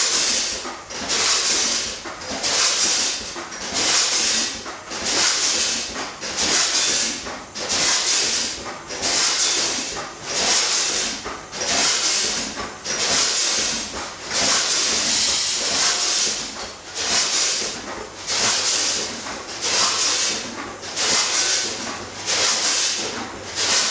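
Packaging-line machinery venting compressed air: short hisses repeating in an even rhythm, slightly faster than once a second, as the line cycles.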